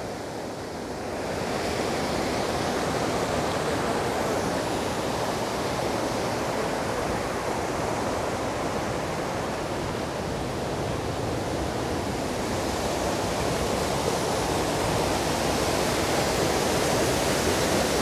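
Steady rush of whitewater: the rocky mountain stream below Njupeskär waterfall tumbling over boulders, an even noise that grows a little louder about a second in.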